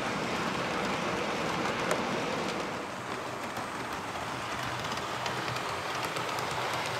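Model diesel locomotives and wagons running on a model railway: a steady whirr and rattle of motors and wheels on the track, with faint clicks over the rail joints. The sound dips slightly about 3 seconds in.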